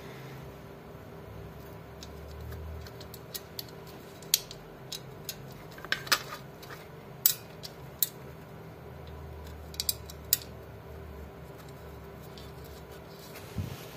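Sharp metal clicks and clinks at irregular intervals as a washing machine motor and its steel mounting bracket are handled and set in place. The loudest clinks fall between about four and ten seconds in.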